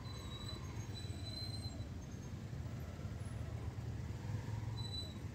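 Steady low rumble of a vehicle on the road, with a faint high whine now and then.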